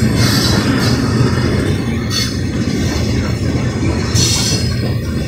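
Union Pacific coal train's gondola cars rolling past in a steady rumble, with the wheels briefly squealing at the start, about two seconds in and again about four seconds in.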